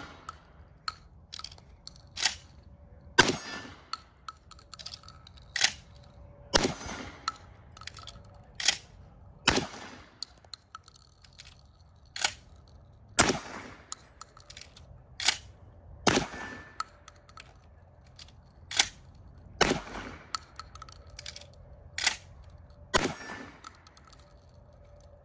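Benelli M4 semi-automatic 12-gauge shotgun being fired one round at a time, with the metallic clack of shells being loaded and the action closing between shots. The sharp reports and clacks come in pairs about a second apart, repeating roughly every three seconds, the louder ones echoing briefly.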